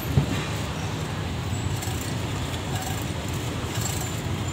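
Steady low motor rumble, with a sharp click just after the start and light metallic clinks.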